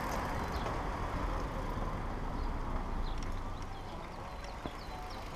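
Wind buffeting and tyre rumble picked up while riding a bicycle along a paved street, with a few faint high ticks about three seconds in.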